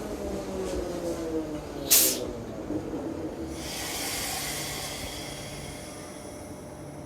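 Electric train slowing down: its motor whine falls in pitch and dies away. About two seconds in there is a sharp, short hiss of air, then a longer hiss that fades, typical of air brakes as the train comes to a stop.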